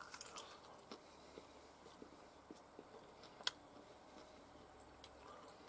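Near silence, with faint scattered mouth clicks of someone chewing a bite of grilled sausage and one sharper click about three and a half seconds in.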